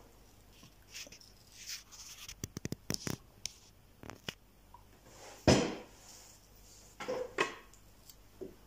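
A baby eating finger food in a high chair: a quick run of small clicks and taps about two and a half seconds in, then a few short louder sounds near the middle and end in a quiet room.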